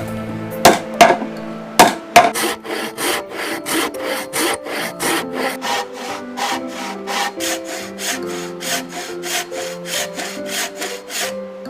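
A few sharp knocks on wood, then rhythmic back-and-forth strokes of a hand tool working wood, about three a second, with background music underneath.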